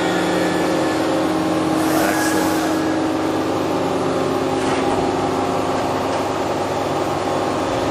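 Toshiba MPF-2114C bridge-type machining center running under power, a steady hum and whine made of several fixed tones. Short hisses come about two seconds in and again a little before five seconds.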